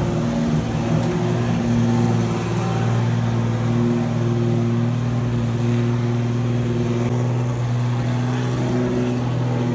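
An engine idling steadily: a constant low hum with no revving.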